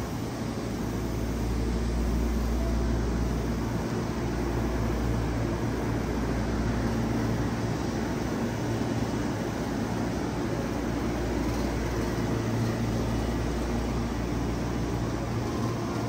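Steady low rumble of a Hankyu electric train running, with a faint hum over it and no sharp clicks or changes.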